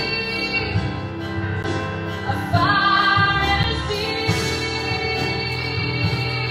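A woman singing a gospel worship song with a live band of keyboard and electric guitars.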